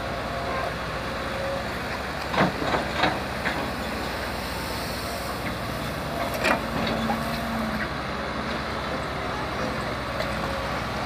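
A heavy machine's engine running steadily, with a cluster of knocks and clanks about two and a half seconds in and another clank around six and a half seconds in.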